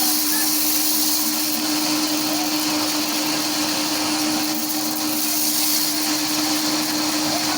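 A steady machine-like drone: an even hiss with a constant low hum, unbroken throughout, with a few faint short chirps over it.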